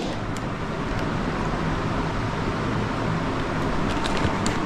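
Steady rushing noise, with a few faint clicks near the start and near the end.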